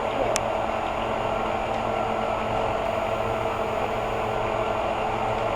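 Chainsaw running at a steady speed, with a short sharp click just after the start.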